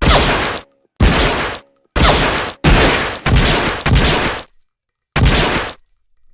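Colt M1911A1 .45 pistol firing seven single shots, each a sharp bang with a short echoing tail. The shots come about a second apart, closer together in the middle, with a longer pause before the last one.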